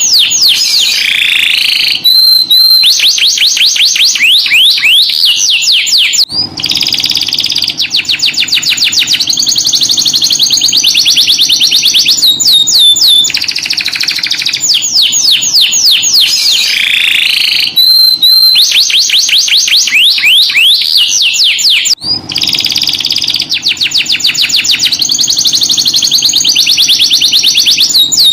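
Domestic canary singing a long, loud song of fast trills and rolls: rapid strings of high notes, many per second, alternating with sweeping notes. The same run of phrases comes round again about halfway through.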